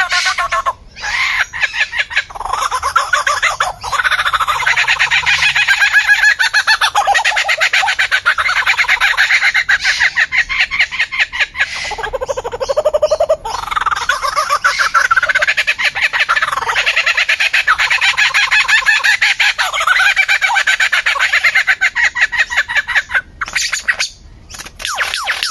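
An unidentified bird calling in a long run of rapid, chattering notes whose pitch wanders up and down, breaking off briefly about halfway and again near the end.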